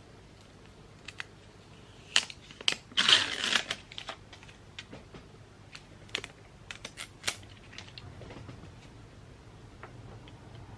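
Typing on a laptop keyboard: irregular, light key clicks as a Wi-Fi password is entered, with a louder half-second clatter about three seconds in.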